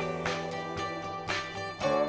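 Background music with plucked guitar over a steady beat.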